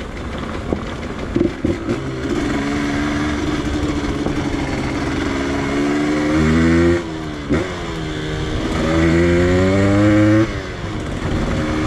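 Yamaha DT 125X's 125 cc two-stroke single-cylinder engine pulling the bike along. The revs climb twice and fall off sharply each time.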